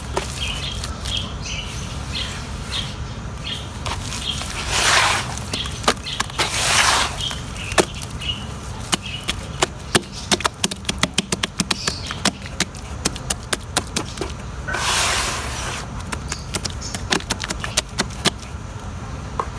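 Large chunks of pure cement crumbling in water: a dense run of sharp cracking and crackling clicks, with longer rushing noises about five, seven and fifteen seconds in.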